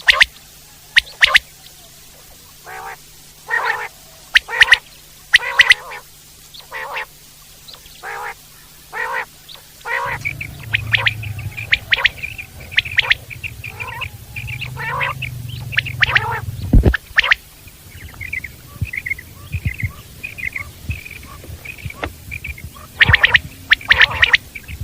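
Common quail (Coturnix coturnix) calling: short, sharp notes repeated in quick groups of two or three. In the middle comes a softer run of rapid chirps, and a low hum sits under it from about ten seconds in.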